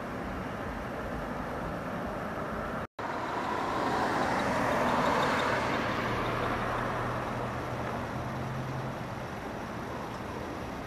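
An SUV driving past on the street, its tyre and engine noise swelling to a peak about five seconds in and then fading, over steady traffic noise. The sound cuts out completely for a moment about three seconds in.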